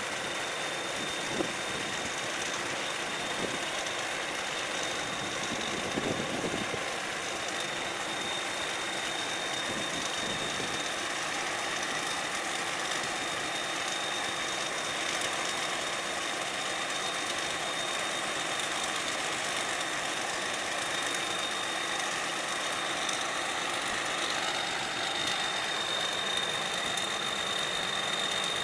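Combine harvester engine running steadily with a constant high-pitched whine over it, during unloading of harvested rice into a truck.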